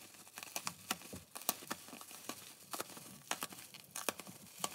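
Bubble wrap and a plastic courier bag crinkling and crackling as hands pull and tear at them to get the packet open, with many irregular sharp crackles.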